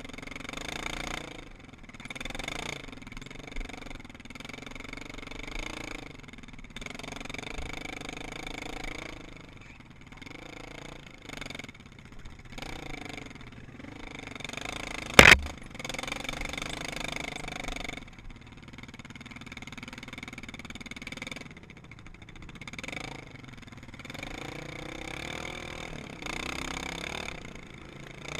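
ATV engine revving up and down as the quad is ridden along a rough dirt trail, the throttle eased off and opened again many times. A single loud sharp knock cuts through about halfway.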